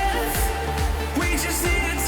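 Hardstyle dance music: a punchy kick drum that drops in pitch on each hit, about two and a half beats a second, under a sustained synth melody.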